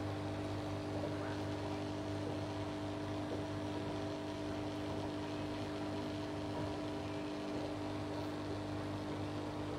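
Aquarium pump running with a steady electric hum and a few fixed tones over it, under a constant hiss of bubbling water from the air stone.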